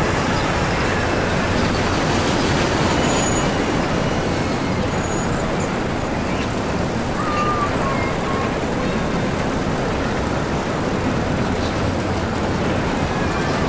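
Steady, even background noise with no speech.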